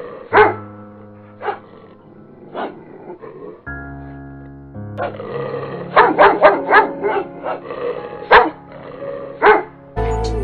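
A dog barking, in single barks and a quick run of several, over background music with long held notes.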